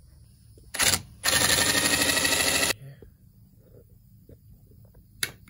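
A sharp click about a second in, then a loud, rapid clicking rattle for about a second and a half that stops suddenly, with light handling of tools and wires around it.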